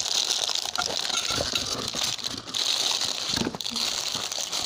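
A clear plastic bag and the individually wrapped candies inside it crinkling and rustling as a hand rummages through them, with scattered small clicks and rattles.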